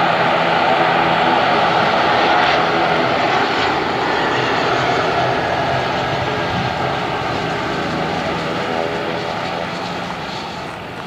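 Bombardier Global Express business jet's twin Rolls-Royce BR710 turbofans heard as it comes in to land, a steady jet noise that fades gradually over the second half as the aircraft touches down and rolls out.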